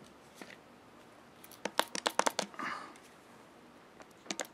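Cleaning supplies being handled on a cloth-covered table: quick clusters of sharp plastic clicks and clatter about a second and a half in and again near the end, with a short rustle of a cleaning rag in between.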